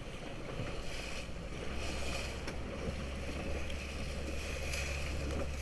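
Boat on open water: wind and water noise with a steady low rumble that grows stronger about two seconds in.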